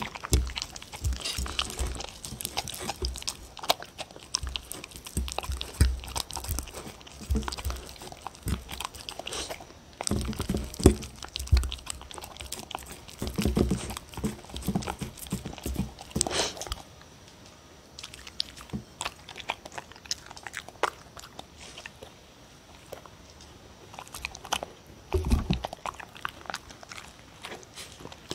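Dog eating close to a microphone: chewing and licking soft food off a plate, a quick run of wet smacks and clicks that thins out for several seconds past the middle before picking up again.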